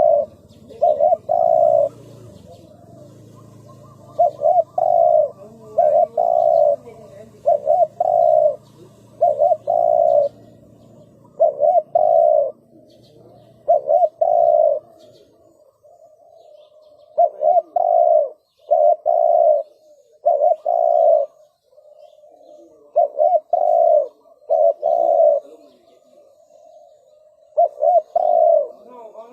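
Spotted dove cooing over and over in short phrases of two or three low notes, with brief pauses between phrases. A faint low hum lies under the calls until about halfway through.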